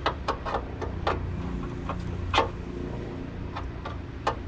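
A string of sharp clicks and knocks from hard parts being handled in the battery area of a car's engine bay, the loudest about two and a half seconds in, over a steady low rumble.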